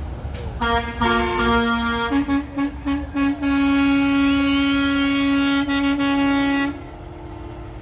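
Semi truck's air horn sounding several notes at once: a few short blasts, then a quick string of short toots, then one long blast of about three seconds that cuts off suddenly.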